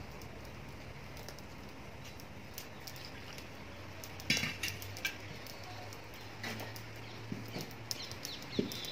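Hands mixing maize flour and water in a steel bowl for makki ki roti dough, with scattered soft clicks and a sharper clink about four seconds in.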